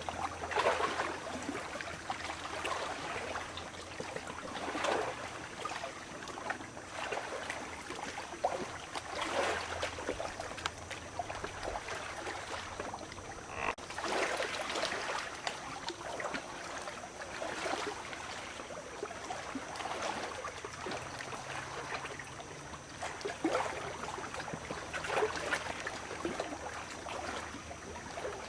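Small waves lapping and washing on a lake's beach, a swell of splashing every few seconds over a steady wash of water.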